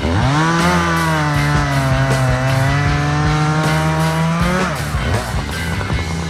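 Echo CS-590 two-stroke chainsaw with a new Oregon chain revving up and cutting through a large pine log. Its engine pitch sags slightly under load for about four seconds, then rises briefly as the bar comes out of the cut and drops back.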